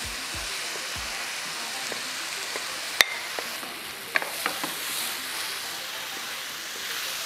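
Coarse green chili paste sizzling in hot oil with garlic and shallots as a wooden spatula stirs it around the frying pan. A sharp tap of the spatula on the pan comes about three seconds in, then a few lighter taps.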